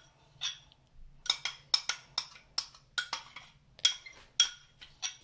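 Metal spoon scraping and knocking against a small glass bowl, shaking tamarind pulp out into a glass blender jar: a run of sharp clinks and taps, about two a second.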